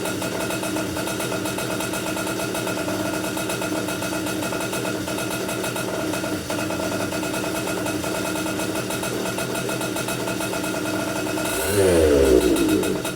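Komet K30 two-stroke rotary-valve kart engine running at a steady idle while its new piston is broken in, then revved briefly near the end.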